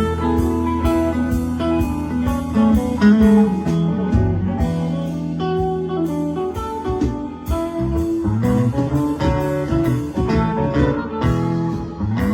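Live band playing an instrumental passage: a guitar lead over bass and a steady drum beat.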